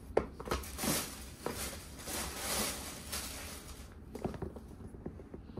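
Tissue paper in a cardboard shoebox rustling as a sneaker is set down and the other is lifted out, with a few light knocks of the shoe and box near the start and again near the end.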